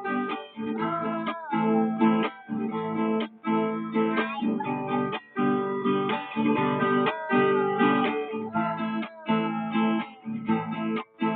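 Acoustic guitar strummed in a steady rhythm, with a melody line gliding over the chords.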